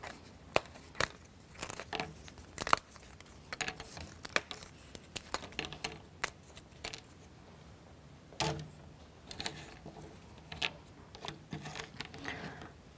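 Small plywood parts being pressed out of a laser-cut wooden kit board: scattered sharp clicks and snaps, irregular throughout, with light clatter of the freed wooden pieces set down on a cutting mat.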